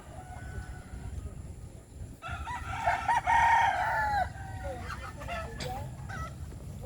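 A rooster crowing once, a loud call of about two seconds near the middle, with a few short, softer chicken clucks after it.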